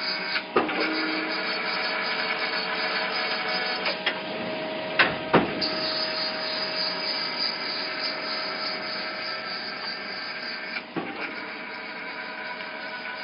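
Semiautomatic nut tapping machine running in continuous mode: a steady motor whine with several held tones, broken by a few sharp metallic clunks, about half a second in, around four seconds, a louder pair about five seconds in, and near eleven seconds.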